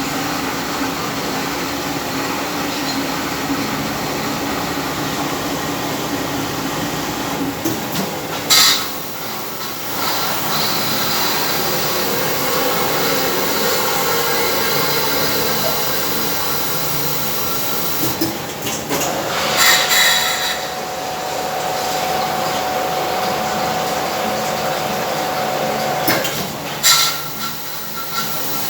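Homemade barrel washing machine running: a steady mechanical drone, broken by three brief louder bursts.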